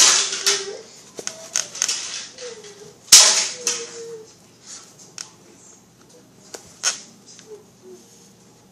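A series of sharp knocks and clicks, thickest in the first four seconds and loudest just after three seconds, then a few scattered ones near seven seconds, with short faint tones in between.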